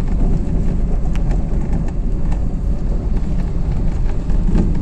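A vehicle driving over a rough desert track: a steady low rumble of engine and tyres, with scattered small knocks and rattles from the jolting.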